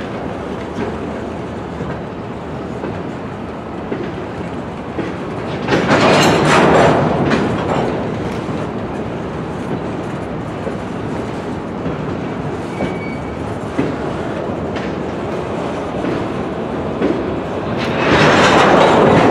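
Freight cars rolling past on the yard track, their wheels clicking over the rail joints, with two louder stretches of wheel noise: one about six seconds in and another near the end.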